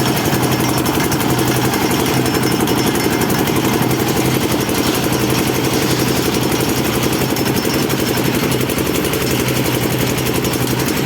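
Concrete mixer machine's engine running steadily at constant speed, with a fast, even pulsing that does not change.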